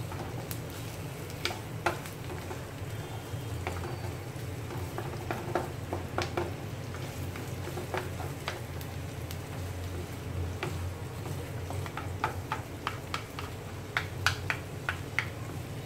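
Chopped onions, garlic and ginger sautéing in a nonstick frying pan: soft sizzling, with scattered clicks and scrapes as two wooden spatulas stir and tap the pan, over a steady low hum.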